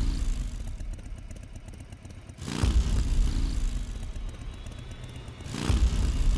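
Motorcycle engine revving in two loud swells about three seconds apart, over a low steady rumble.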